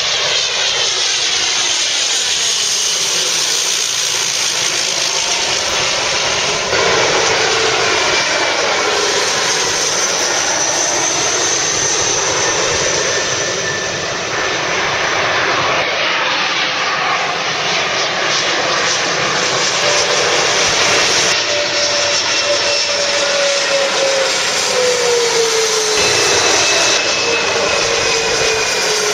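Regional airliners on final approach passing low overhead one after another, a turboprop first and then rear-engined twin-turbofan regional jets. Each pass is a steady engine rush with whines that slide down in pitch as the aircraft goes by, and the sound changes abruptly a few times where one pass is cut to the next.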